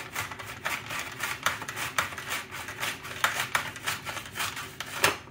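An onion being sliced thin on a plastic hand slicer (mandoline), the hand guard pushing it back and forth across the blade in quick rasping strokes, about two or three a second.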